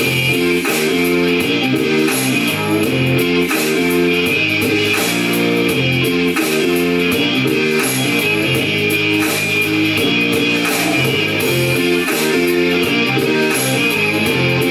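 Guitar-led instrumental music, plucked and strummed, with a bass line and a steady repeating pattern of notes.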